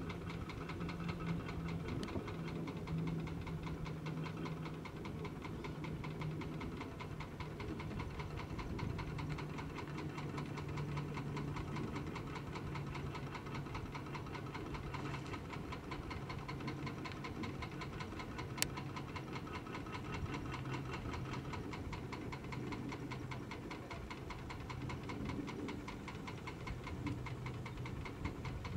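Boat engine running steadily, heard on board as a constant low hum with a fast, even throb. One sharp click about two-thirds of the way through.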